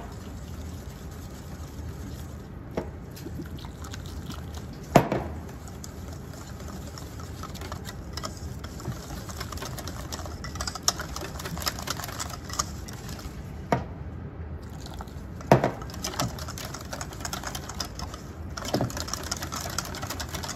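Wire balloon whisk beating a thin tempura batter in a stainless steel bowl: quick clicking and scraping of the wires against the metal, with a few louder knocks.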